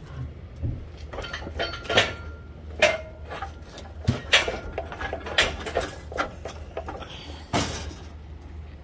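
Irregular metallic clinks and rattles, a dozen or so sharp knocks with a brief ring, as an engine hanging from a hoist chain is worked loose from the car, over a steady low hum.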